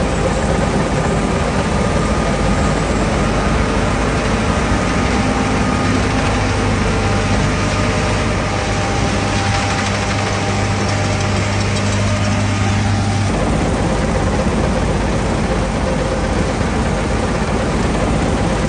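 John Deere S785i combine harvester running steadily as it cuts wheat: a dense mechanical rumble with an engine hum. A strong low hum drops out suddenly about thirteen seconds in while the rest of the noise carries on.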